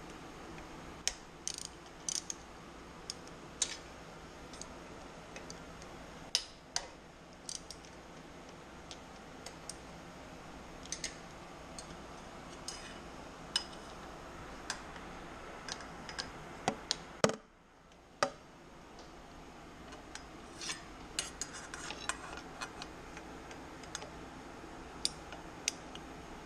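Hand ratchet wrench clicking and steel tools clinking against the exhaust fittings as the exhaust pipe bolts are worked loose. The sharp clicks come irregularly, in short clusters, over a steady background hum.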